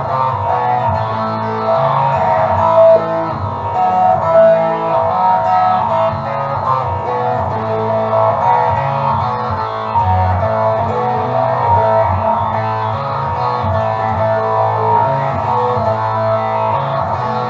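Music led by guitar, with sustained notes over a steady bass line.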